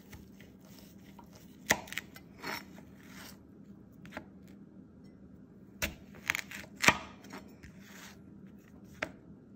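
Kitchen knife chopping pears on a thin plastic cutting board: irregular sharp knocks as the blade strikes the board, the loudest about two seconds in and again near seven seconds, with a quick cluster between them.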